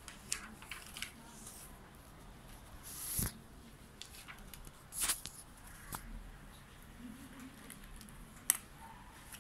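Scattered rustles and sharp clicks from a handheld phone being moved and handled, over quiet room tone.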